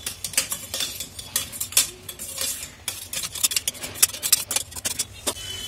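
Metal slotted spatula stirring potato pieces in a stainless steel pressure cooker: irregular scrapes and clinks of metal on the pot.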